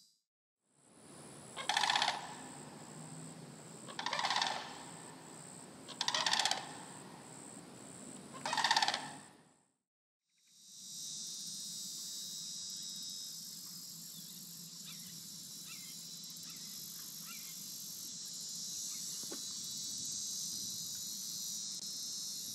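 Sandhill crane giving four loud calls about two seconds apart, over a thin high insect drone. After a short break it gives way to a steady, high-pitched chorus of insects.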